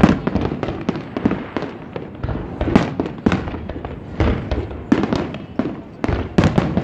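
Fireworks display: aerial shells bursting in a rapid, irregular string of bangs.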